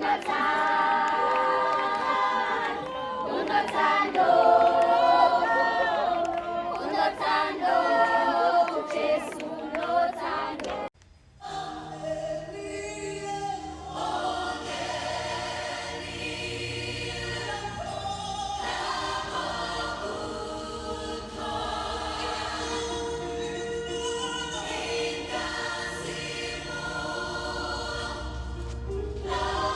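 A choir singing a gospel song in harmony, with no instruments heard at first. It cuts off abruptly about eleven seconds in, and the singing resumes with a steady deep bass sound underneath.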